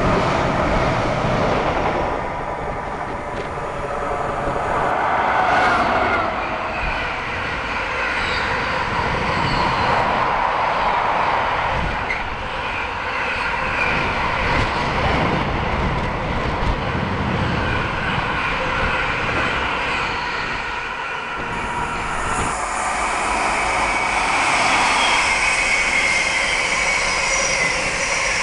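Container wagons of an intermodal freight train rolling past at speed: a continuous rumble and rattle of wheels on rail that swells and eases, turning brighter and hissier in the last few seconds.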